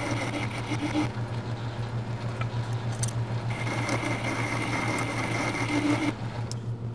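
Logan metal lathe running with a boring bar cutting a register inside a spinning steel adapter: a steady hum under a high, steady cutting whine that comes and goes, dropping away about six seconds in.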